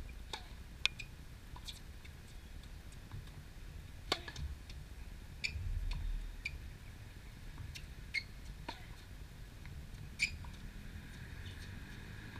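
Scattered sharp ticks and short high squeaks on an outdoor hard tennis court, the loudest tick about a second in: tennis ball strikes and bounces, with shoe squeaks, over a low rumble of background noise.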